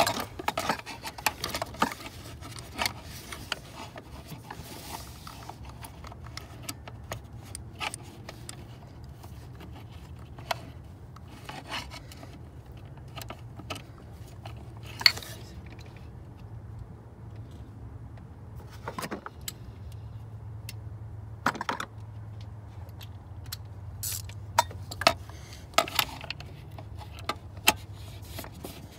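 A ratchet and Torx socket clinking and scraping against metal as they are worked onto a serpentine belt tensioner bolt: scattered, irregular sharp clicks and clanks over a low steady hum.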